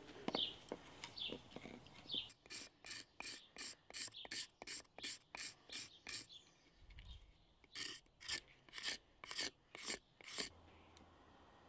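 Quick, short scraping strokes of a hand-held axe blade shaving down a wooden axe handle, about four strokes a second. They come in two runs with a brief pause in the middle.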